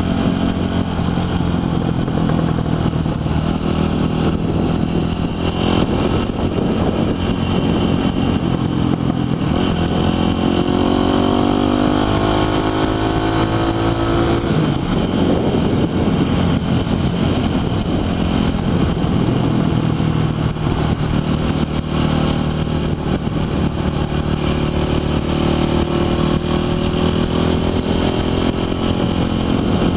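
Motorcycle engine running under way, heard from on the bike. Its pitch climbs steadily from about ten seconds in, drops sharply near the middle, then climbs slowly again near the end.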